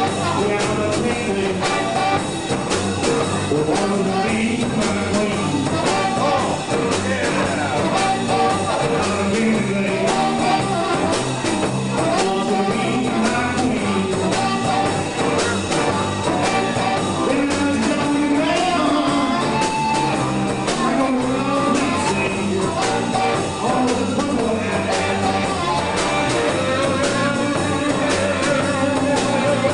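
Live blues band playing: electric guitar, bass and drum kit, with a harmonica carrying wavering held notes over them.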